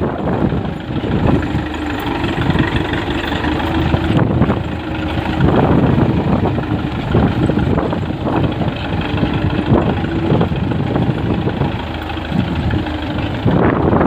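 Tractor's diesel engine running steadily while pulling a tine cultivator through the soil, with wind buffeting the microphone.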